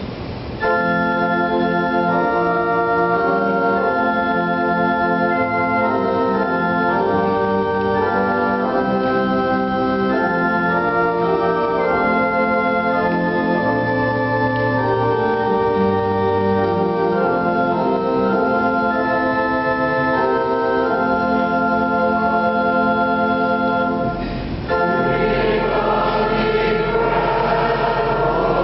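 Organ playing slow sustained chords with occasional low bass notes. About 24 seconds in it pauses briefly, then a choir begins singing with the organ.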